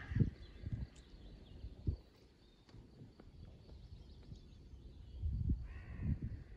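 Quiet outdoor ambience with faint bird calls, a crow cawing faintly near the end, and a few low thumps on the microphone.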